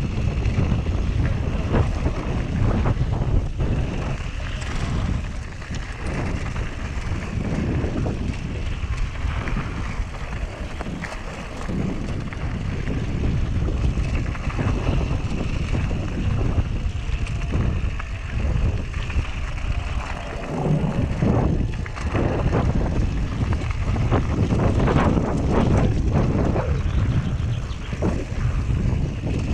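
Wind buffeting an action camera's microphone on a descending Whyte G-170 mountain bike, with the rumble of its tyres on gravel and dirt and frequent knocks and rattles of the bike over bumps.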